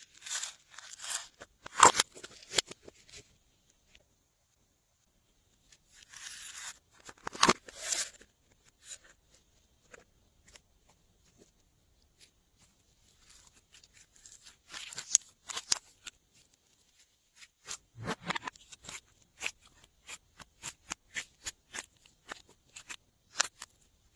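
Glossy slime being squished and stretched by hand: bursts of sticky crackling and squelching, then a run of sharp popping clicks at about three or four a second near the end.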